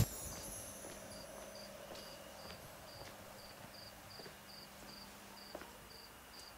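Cricket chirping steadily, a faint high chirp repeating about two to three times a second.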